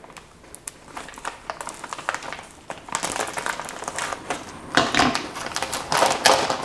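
A clear plastic parts bag crinkling and crackling as it is handled and pulled open by hand, with faint rustles at first and louder crackling from about three seconds in.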